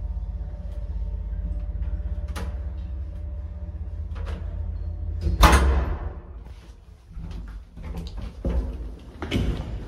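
Tranza elevator running with a steady low hum that ends about five and a half seconds in with one loud clunk as the car stops, followed by a few knocks and door sounds.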